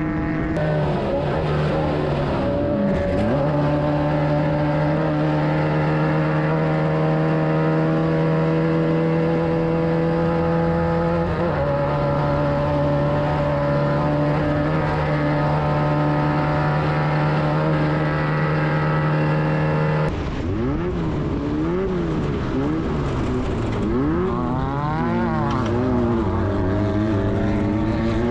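Class 9 VW buggy's air-cooled Volkswagen engine running hard at steady revs, with a small step down in pitch about eleven seconds in. After a sudden change about two-thirds through, the engine note rises and falls again and again as the revs swing up and down.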